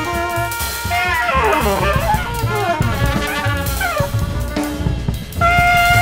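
Small jazz band playing: trumpet over a drum kit. From about a second in there is a cascade of fast falling and rising runs, and a loud new held note comes in near the end.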